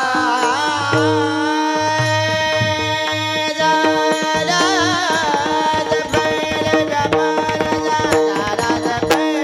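Varkari kirtan devotional singing: a high voice holds a long, wavering note for about four seconds, then carries on into a new phrase. Steady mridang drum strokes and held accompanying tones play underneath.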